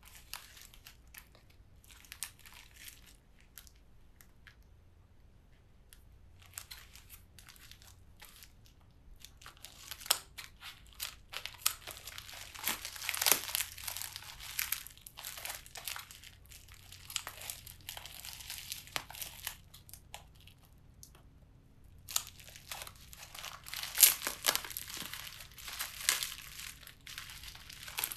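Crinkly plastic and foil packaging wrap crackling and tearing as it is handled and cut open. Sparse crackles at first, then dense crinkling from about a third of the way in, with a brief lull before it picks up again near the end.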